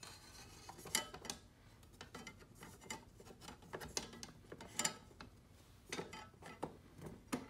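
Scattered light clicks and taps, with some rubbing in between, as the rigid top panel of a sunshade is handled and fitted into place on the open lid of a hard case.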